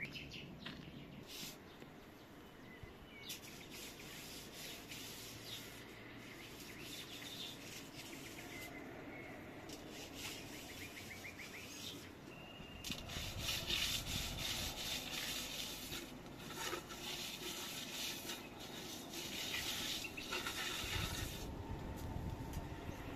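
Birds singing with short trills in the first half, then louder rustling and scraping from about halfway on.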